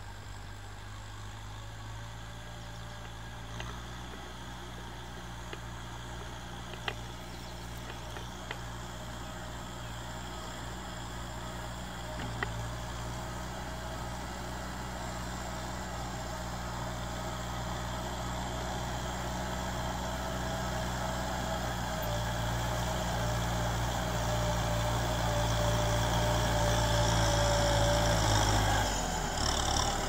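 Kubota tractor's diesel engine running steadily under way, growing gradually louder as the tractor comes closer, with a few light knocks; the engine note changes shortly before the end.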